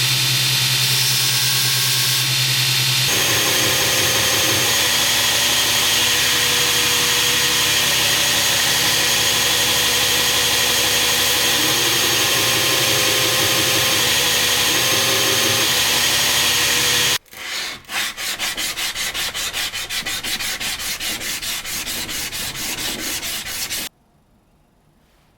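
Knife-finishing work on a steel blade: a power tool runs with a steady grinding and sanding noise, then fast, evenly repeated rubbing strokes for several seconds that stop abruptly.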